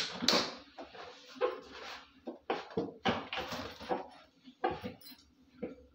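Heated kitchen knife stabbing and sawing into a thin plastic water bottle: the plastic crackles and squeaks in a string of short, irregular bursts.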